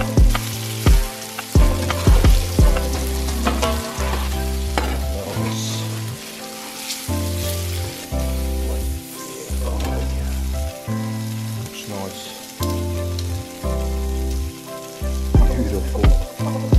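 Background music with a deep bass line and drum hits, the drums clustered near the start and again near the end. Under it runs the steady sizzle of fish cooking on a barbecue grill and hotplate.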